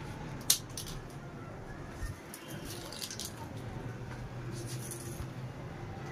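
Dry clothes being pulled off a washing line and gathered: a sharp click about half a second in, then a few short rustles of cloth, over a steady low rumble.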